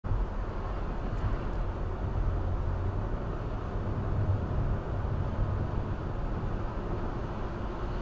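Steady road noise of a car driving on a rain-wet road, heard from inside the cabin.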